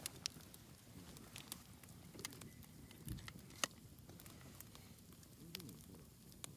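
Wood campfire crackling, with sharp pops and snaps coming irregularly, the loudest about three and a half seconds in.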